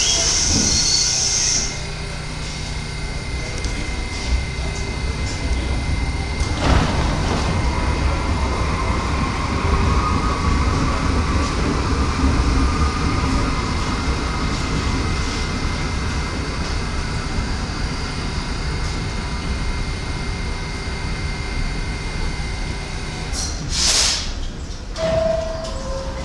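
R68/R68A subway train finishing its stop at the platform: a high wheel and brake squeal cuts off about a second and a half in. The train then stands with a steady rumble and hum, a knock after about seven seconds and a faint rising whine. Near the end comes a sharp burst of air hiss and a two-note falling door chime, the signal that the doors are about to close.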